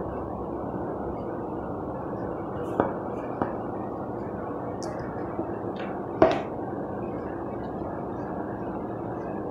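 Powdered scouring cleanser shaken from its can into a plastic tub of soapy water and worked in by hand, over a steady low hiss. Two light taps come about three seconds in and a sharper knock about six seconds in, the loudest sound.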